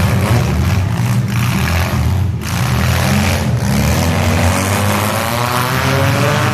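Demolition derby car engines running loud and revving, their pitch wavering up and down.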